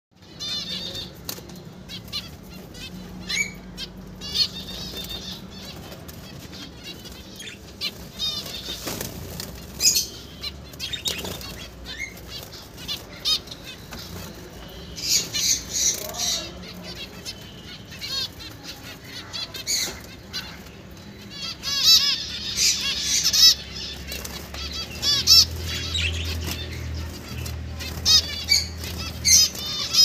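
A flock of caged zebra finches calling over and over with short, nasal, honking beeps, many birds at once, busiest in the middle and toward the end, with bursts of wing fluttering as birds flit about the cage. A steady low hum runs underneath.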